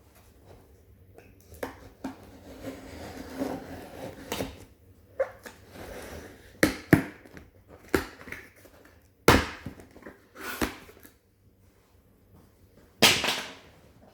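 Cardboard laptop packaging being handled and pulled at: a stretch of rustling, then a series of sharp knocks and thumps as the stuck contents are worked at.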